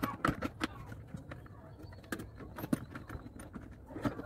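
Hard plastic air filter housing being handled by hand: a scattered series of clicks and knocks as the cover and its latch are gripped and tapped.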